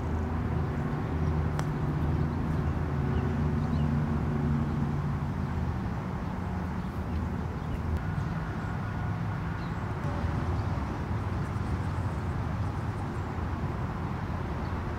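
Steady low engine hum that is strongest for the first five seconds and then fades down. A single sharp click comes about a second and a half in.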